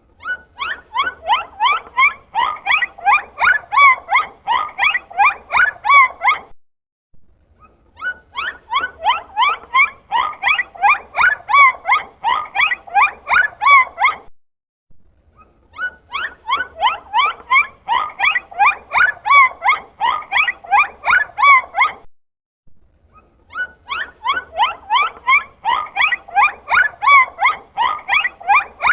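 Dolphin calls: rapid squeaky chirps and pulsed clicks, about three to four a second, in four bursts of about six seconds each separated by short pauses.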